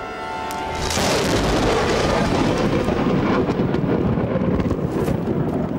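A close lightning strike: a sudden thunderclap about a second in, followed by a continuous rumble.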